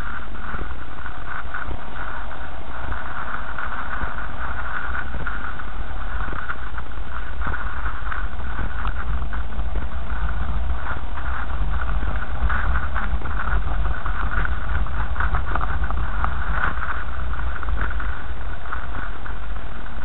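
A car driving slowly over a muddy, rutted dirt track, heard from inside the car: a steady low engine and road rumble with frequent small knocks and rattles from the bumps.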